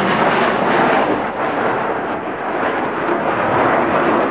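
Loud, rumbling jet noise from a Blue Angels F/A-18 Hornet's twin turbofans as the jet flies past overhead. The noise holds steady and begins to ease near the end.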